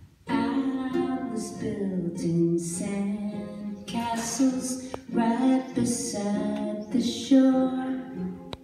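A woman sings a song in phrases with held notes, to ukulele and acoustic guitar accompaniment.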